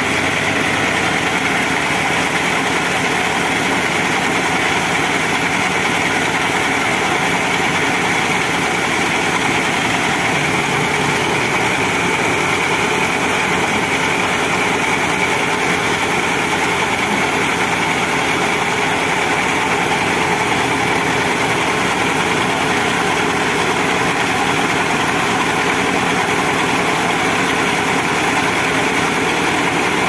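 Band sawmill and its diesel drive engine running steadily at constant speed with no cut under way, a loud even mechanical drone.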